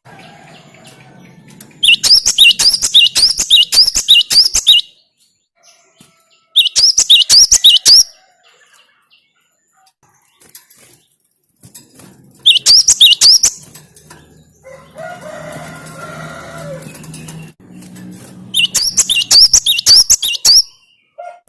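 Cinereous tit (gelatik batu) singing in four bouts of rapid, evenly repeated sharp high notes, about three a second, with pauses between the bouts.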